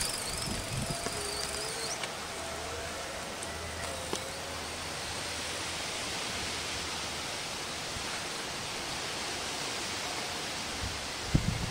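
Steady outdoor background hiss, with a faint wavering whine in the first few seconds as a small electric-bike hub motor pulls away. A couple of low knocks come near the end.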